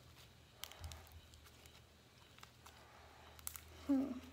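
Pink slime with clay mixed in being kneaded and squeezed by hand, giving faint sticky clicks and squishes. There is a brief vocal sound about four seconds in.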